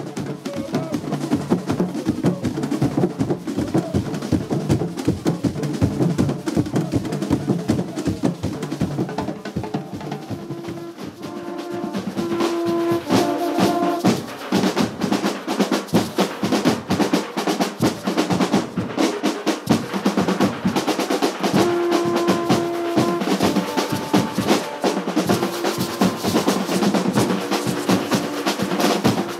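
Carnival percussion music: fast, dense drumming with snare and bass drums, with held tones joining from about twelve seconds in and again near the end.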